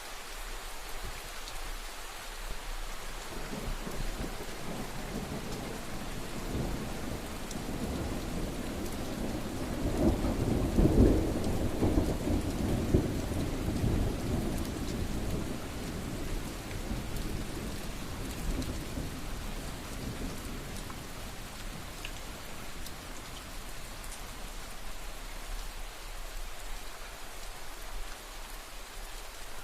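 Steady rain falling, with a long low rumble of thunder that builds a few seconds in, is loudest near the middle and slowly dies away.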